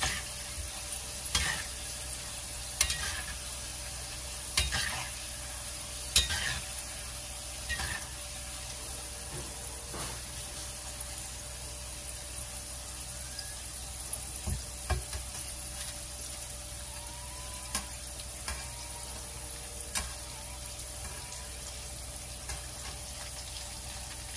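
Sweet potato chip pieces deep-frying in hot oil in a wok, with a steady sizzle. A slotted metal spatula clicks against the wok every second or two as they are stirred, more often in the first half.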